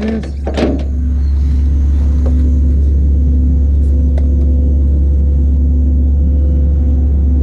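Truck engine running steadily, a strong low drone with a faint steady whine over it.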